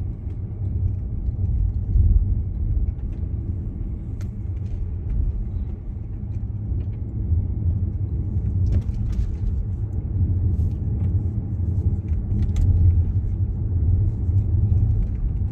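A car driving along with a steady low rumble of engine and road noise, with a few faint light clicks.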